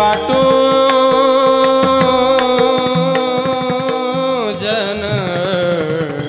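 Devotional Warkari kirtan singing: a male voice holds one long sung note, then breaks into wavering melodic turns about four and a half seconds in, over mridang strokes.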